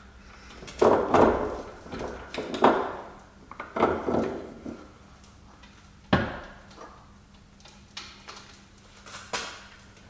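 Hand tools and loose metal suspension parts clanking and rattling while a strut mounting nut is undone: about five separate knocks and clatters, the loudest cluster about a second in.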